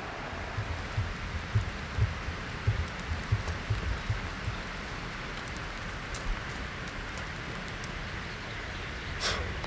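Wood campfire burning, a steady hiss with scattered sharp crackles and pops. A few dull low thumps sound in the first half, and a short louder crunch comes near the end.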